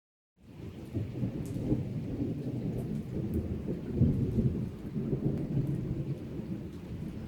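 Thunder rolling in a long low rumble that swells several times, loudest about four seconds in, with rain falling.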